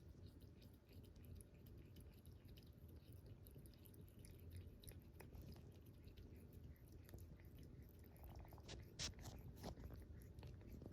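A cat lapping water: faint, quick, irregular clicks of its tongue at the water, with a few louder ones near the end.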